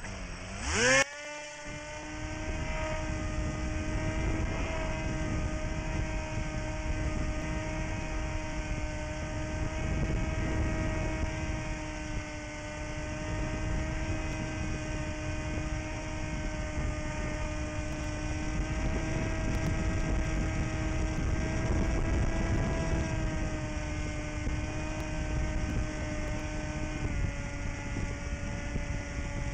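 Small electric FPV plane's 2300 kV motor and 7-inch prop heard from the onboard camera. A whine rises sharply and peaks loudly about a second in as the throttle comes up, then holds a steady buzzing pitch in flight over a rush of air noise. The pitch drops slightly near the end.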